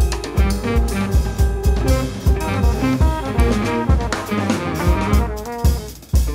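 Jazz septet playing: trumpet and tenor saxophone over piano, guitar, bass and drum kit. A horn holds one long note through the first couple of seconds, and the band drops back briefly just before the end.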